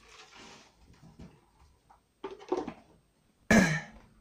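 Soft rustling and a few scattered knocks, then one loud, sharp bang about three and a half seconds in.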